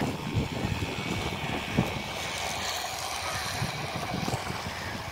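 Wind buffeting the microphone: an uneven low rumble broken by irregular soft thumps.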